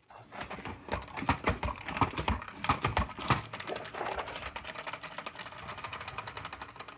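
Push-down salad spinner being pumped: a rapid clatter of plastic ratcheting clicks as the basket spins, loudest in the first few seconds, then a steadier, softer clicking whir that fades as it coasts.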